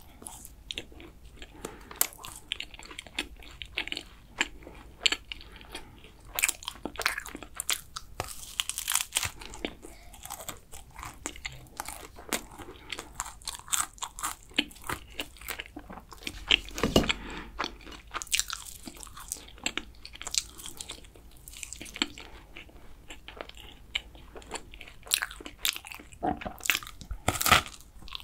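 Close-miked chewing of flaky kouign-amann pastry: frequent sharp crackles as the crisp, caramelised laminated crust breaks between the teeth.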